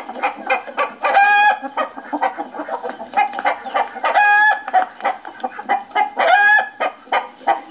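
Hen clucking in quick short calls, broken by three longer drawn-out squawks: one about a second in, one just past the middle and one near the end.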